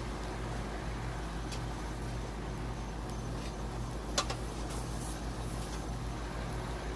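A steady low outdoor rumble throughout, with one sharp click about four seconds in as a metal spatula touches the grill pan, and a few fainter ticks around it.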